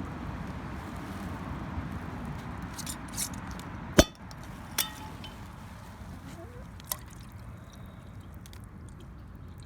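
Whey being handled and poured into the hens' frozen-over waterer: a steady rushing noise with one sharp clink of the container about four seconds in and a few lighter knocks.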